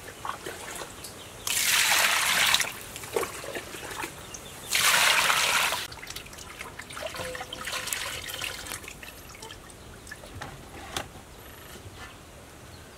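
Water splashing and pouring off a whole plucked duck as it is rinsed in a metal basin, with two loud pours of about a second each, then quieter dripping and handling in the water.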